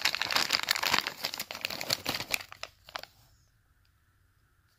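Clear plastic bag of hydraulic fittings and bolts crinkling as it is handled, stopping about three seconds in.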